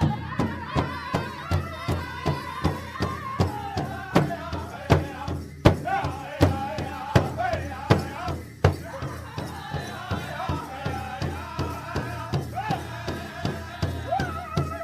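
Native American-style drum and chant: a steady drum beat, about three strokes a second, under a group of voices singing a wavering, high chant.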